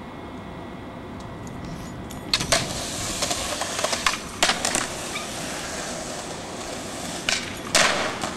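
A steady background hiss, then after about two seconds a skateboard rolling on concrete, with several sharp clacks of the board striking the ground and a louder clack near the end.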